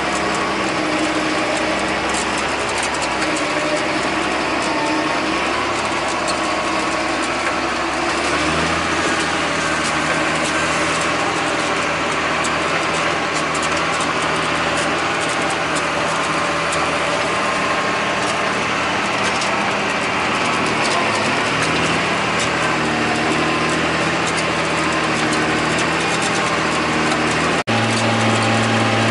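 John Deere 8100 tractor's six-cylinder diesel engine running steadily under load while pulling a disk ripper, heard from inside the cab with a constant rattle and clatter. The engine note shifts pitch a couple of times, and there is a brief dropout near the end.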